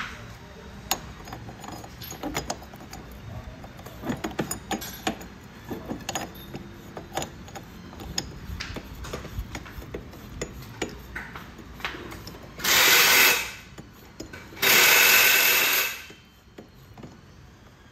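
Workshop tools being handled with scattered metal clicks and clinks, then two loud bursts of a power tool, one under a second and one about a second and a half long, with a short gap between them.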